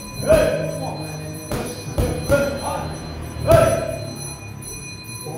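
Punches smacking into boxing mitts: five sharp hits at uneven spacing, each with a brief ringing tail.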